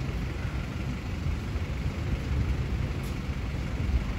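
Fire-department van's engine running at low speed as the van creeps forward, a steady low rumble.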